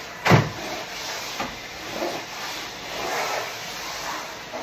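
A sharp thump about a third of a second in, then a couple of lighter knocks, over a steady hiss.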